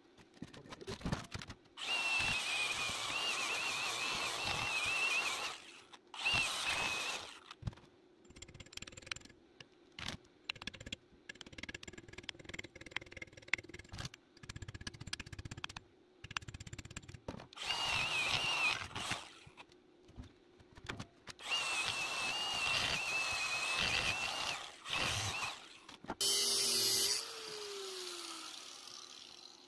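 Angle grinder grinding steel: several runs of a few seconds each, with a wavering high whine over the noise, and knocks and clatter of metal being handled in between. Near the end a short run stops and the motor spins down with a falling tone.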